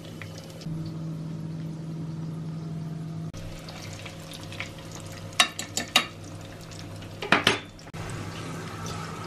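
Oil sizzling steadily in a frying pan as belyashi deep-fry. Sharp metal clinks and scrapes of a fork against the pan come in two short clusters, around the middle and again near the end, as the pies are turned.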